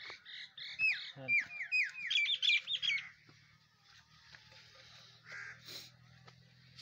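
A songbird calling a quick run of high, falling chirps through about the first three seconds. After that, only a faint steady low hum and a few light clicks remain.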